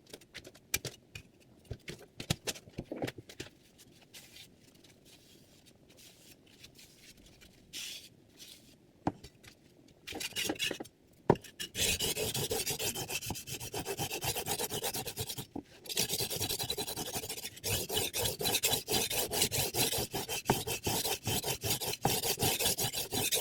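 Chef's knife edge stroked rapidly back and forth across a diamond sharpening plate, a dense scraping rasp that starts about halfway through and pauses briefly twice. Before it, only scattered light clicks and taps of handling.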